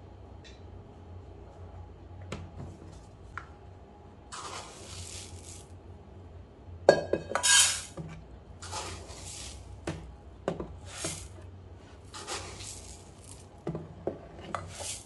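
Raw rice being scooped from a plastic storage bin with a measuring cup and poured into a pot: several rattling, hissing pours of grains, with sharp clinks of the cup against the pot. The loudest clatter comes about seven seconds in.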